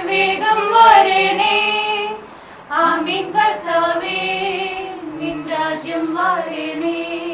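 A group of women singing a Malayalam Christian hymn together, with a short break about two seconds in before the singing picks up again.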